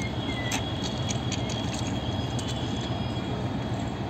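Passenger train coaches rolling past on the track with a steady low rumble. A quick run of sharp wheel clicks and clatter comes in the first couple of seconds.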